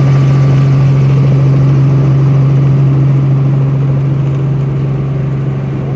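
Helicopter engine and rotor running steadily, heard from inside the cabin: a loud, even drone with a strong low hum.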